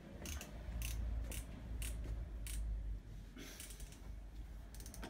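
Short sharp metallic clicks about every half second, typical of a hand ratchet being worked in short strokes under a scooter, with a quicker run of clicks about three and a half seconds in. A low steady rumble sits underneath.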